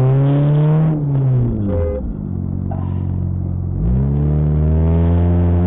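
Car engine accelerating and easing off. Its pitch rises over the first second, falls away, holds low and steady, then climbs again near the end.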